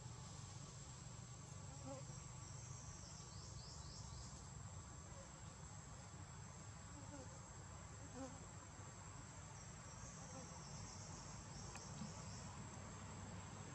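Faint insects trilling outdoors: a steady thin high whine, with two bouts of fast, pulsing high buzzing several seconds apart, over a low background hiss.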